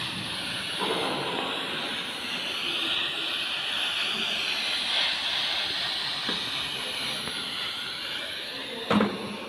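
TIG welding arc on a stainless steel tube, a steady hiss. A short knock comes near the end.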